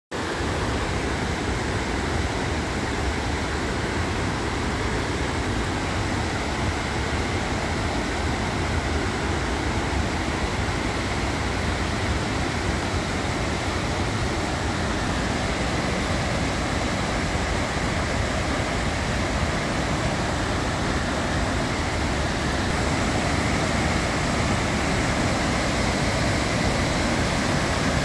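River rapids: white water rushing steadily, growing a little louder near the end.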